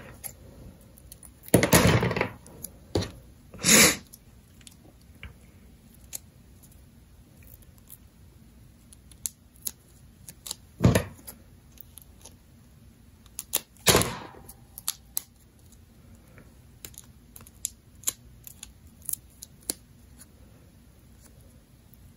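Clear adhesive tape pulled off its roll and snipped with scissors, four short rasping bursts in all, the first and longest about two seconds in. Light paper handling and small clicks come in between as the strips are pressed onto a paper model plane.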